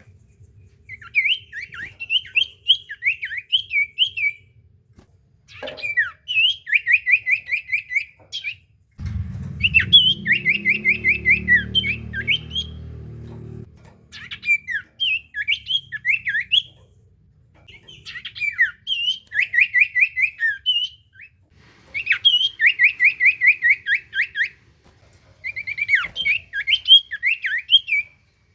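Common iora (cipoh) singing loudly in repeated bouts of sharp whistled notes and rapid trills, with short pauses between the bouts. A low rumble runs under the song for about four seconds starting about nine seconds in.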